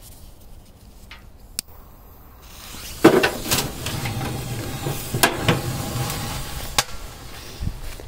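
A Korsar firecracker going off inside a washing machine: a sharp bang about three seconds in, followed by a few seconds of rattling noise with several further sharp knocks.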